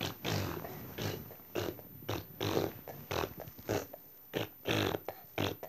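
A child making a run of short grunting, pig-like noises with the voice, about two a second.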